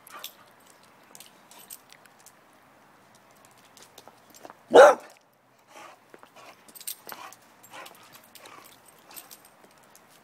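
American Staffordshire terrier giving a single loud bark about halfway through, with faint scattered clicks and rustles around it.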